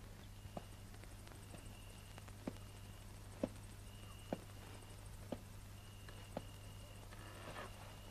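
Slow, regular footsteps, about one a second, with crickets chirping in short high trills over a faint low hum.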